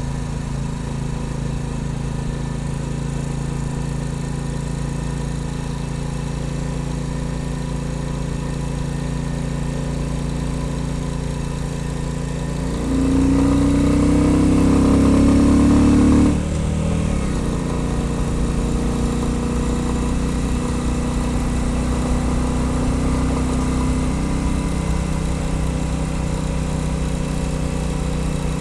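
Royal Enfield Bullet 350's single-cylinder engine running steadily on the road. About 13 seconds in it grows louder, its pitch rising slowly for about three seconds, then it drops back suddenly and settles into a steady run again.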